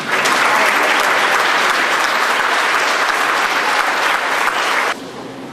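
Audience applauding. The clapping cuts off suddenly near the end.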